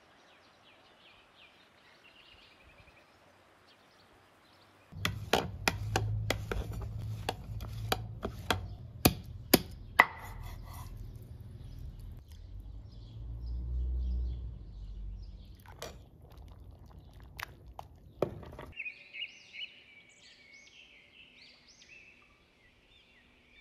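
Bone-in lamb being chopped with a large knife on a wooden board: a quick run of sharp chops, about two a second, then a few more spaced out. Birds chirp faintly before the chopping and call more clearly once it stops.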